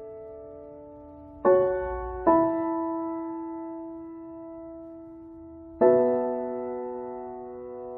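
Background music of slow, sustained keyboard chords. A new chord is struck about a second and a half in, another just after two seconds, and a third near six seconds, each fading slowly.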